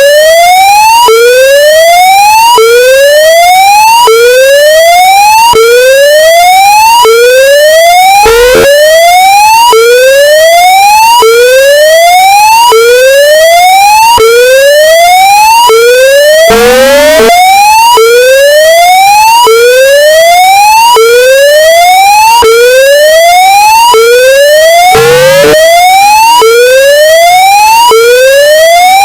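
Emergency alert system alarm tone: an electronic whoop that rises in pitch and repeats about every one and a half seconds. It is boosted to clipping, so it sounds extremely loud and harsh. Three times it is cut by a short burst of noise.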